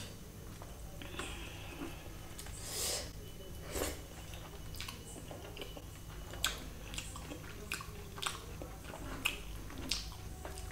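Close-miked chewing of chicken biryani, with soft wet mouth smacks and clicks at irregular moments.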